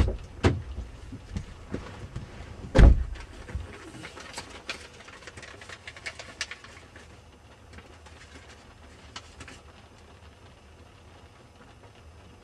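A few sharp knocks and thumps, the loudest about three seconds in, followed by scattered light clicks that thin out.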